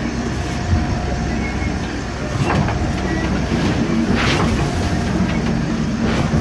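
Mitchell 31 motor cruiser's inboard diesel engine running steadily, heard inside the wheelhouse, as the boat pitches into a rough sea. Three rushes of water about a second and a half apart, the biggest about four seconds in: waves breaking over the bow and sheeting across the windscreen.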